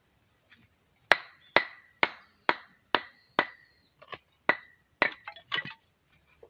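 About ten hammer strikes on metal, roughly two a second, each with a short ringing note; the last few come less evenly.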